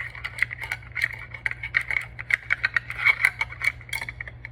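Small metal parts of a caliper handle clicking and rattling in quick, irregular succession as a part is shimmied back and forth to work it into place.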